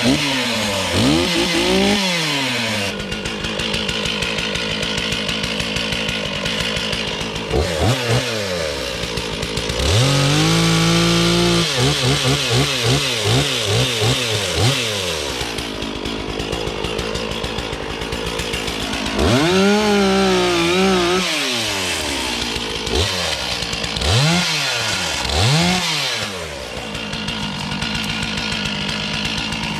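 Stihl MS 461 two-stroke chainsaw running, revved up and let back down to idle again and again, held at high revs for a couple of seconds about ten seconds in, as it cuts through hardwood.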